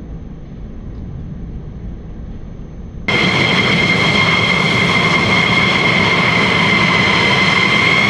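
Low rumble of F-16 fighter jets flying at a distance. About three seconds in it gives way abruptly to the loud, steady high-pitched whine of F-16 jet engines at low power as two jets taxi.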